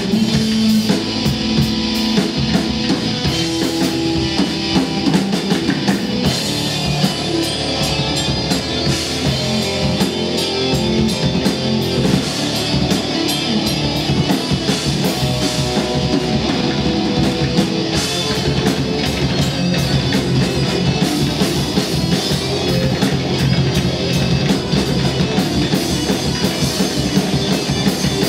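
Rock/metal band playing live: electric guitars over a drum kit, loud and continuous.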